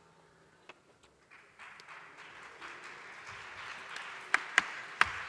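Audience applause building up after a quiet first second, with sharp, louder claps and thuds breaking in about four seconds in.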